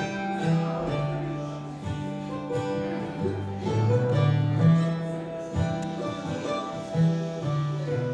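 Bluegrass string-band music led by acoustic guitar, with low bass notes moving underneath.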